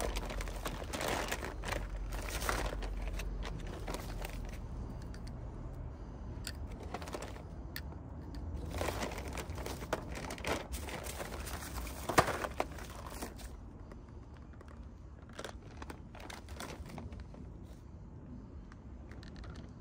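Bubble wrap and plastic bags crinkling and rustling in irregular handfuls as they are pulled open. There is one short sharp click a little past the middle.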